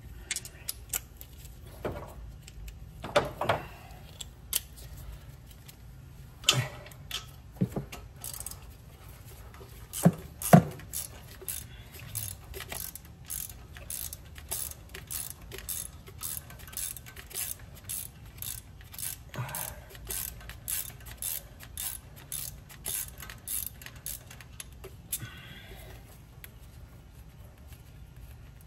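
Metal hand tools working on a boat engine: scattered metallic clanks and clinks, the loudest a pair about ten seconds in. Then comes a steady run of light clicks, about two a second, lasting roughly fifteen seconds.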